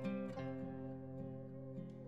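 Instrumental background music, with notes that start sharply and ring on.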